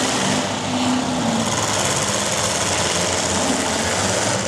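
Several demolition derby cars' engines running together: a loud, steady, dense mechanical noise.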